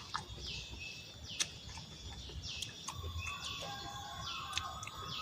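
Birds chirping outdoors: a short, high call repeats about once a second, with other calls beneath it and a few faint clicks.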